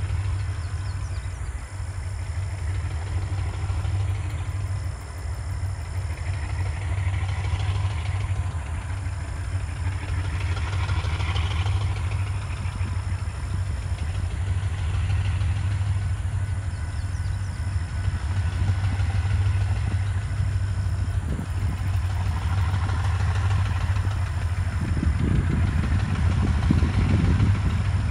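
Two GE B23-7 diesel-electric locomotives, each with a 12-cylinder GE FDL engine, running as they pull a freight train toward the listener: a steady deep engine drone that grows slowly louder, with a rougher rumble building near the end as the train draws closer.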